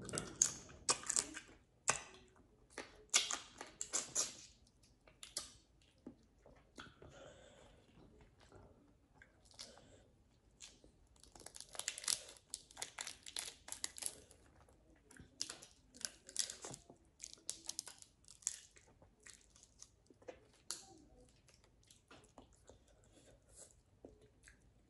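A person eating, with crunchy chewing and crackling of food in irregular clusters of sharp crunches, densest about halfway through.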